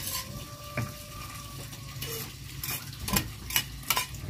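Cooking utensils clinking: a wire strainer ladle knocking and scraping against a bowl and pot as boiled genjer leaves are tipped out, with a few sharp clinks near the end.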